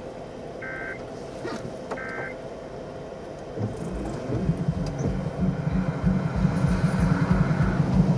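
Short electronic chime beeps, about every second and a half, typical of a vehicle's warning chime, with a few clicks. From about three and a half seconds in, a low rumble swells and keeps growing louder.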